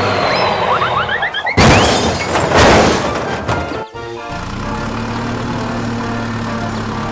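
Background music broken by two loud crashing, shattering sound effects about a second and a half and two and a half seconds in, after a quick run of rising chirps; the music carries on steadily afterwards.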